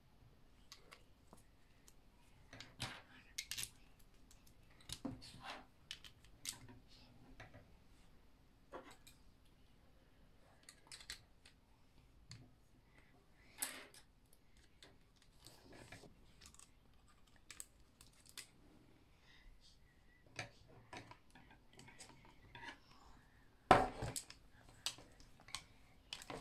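Meccano Junior plastic strips, nuts and bolts clicking and clattering on a tabletop as the parts are handled and fitted together: scattered light clicks, with one louder knock near the end.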